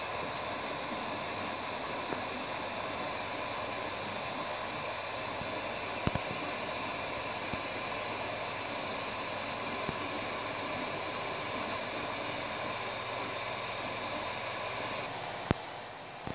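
A Prusa i3 3D printer running mid-print: a steady whir from its cooling fans and motors as the print head lays down filament. There are a couple of sharp clicks, the loudest near the end.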